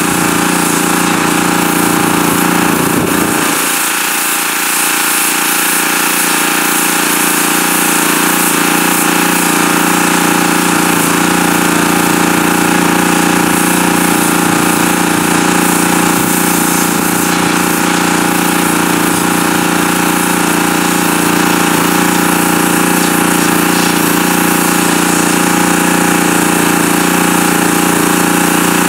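Pressure washer running steadily, its high-pressure water jet hissing and spattering against the flesh side of a muskrat pelt as it blasts off fat and tissue.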